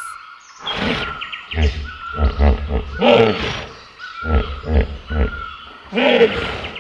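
Hippopotamus calling: two bouts of rapid, deep pulsed grunts, the first starting about a second and a half in and the second about four seconds in, each building to a louder call.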